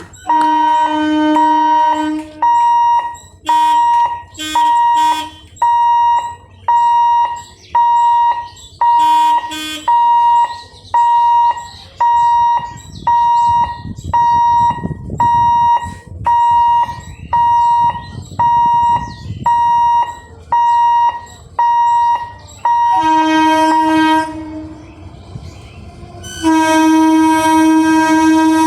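Train horn sounding in short blasts about once a second, with longer two-tone blasts at the start and near the end. The rumble of a passing train runs under the blasts in the middle.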